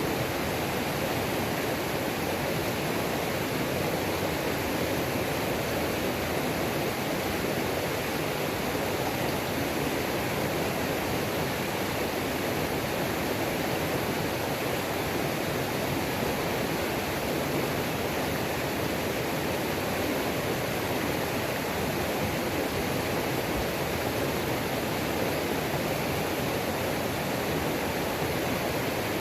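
Waterfall on a mountain creek: a steady, even rush of falling and tumbling water.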